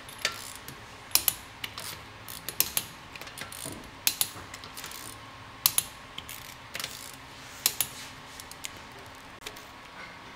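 Hand ratchet clicking in short bursts of two or three sharp clicks, about every second or so, as the wheel bolts are run in on a car wheel.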